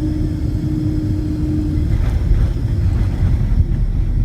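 Loud, steady low rumble of a Boeing 767 airliner heard inside the cabin during the approach to landing, with a steady hum that stops a little under halfway through.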